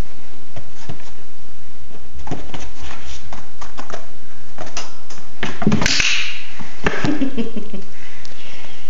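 Scattered light taps and scuffs of a puppy's paws on a cardboard box, with a sharper training-clicker click about six seconds in marking the behaviour for a food reward.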